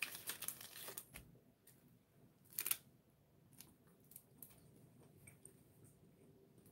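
Clear plastic wrapper crinkling as a beef snack stick is handled, with one sharp crackle about two and a half seconds in. Faint clicks of biting and chewing the stick follow.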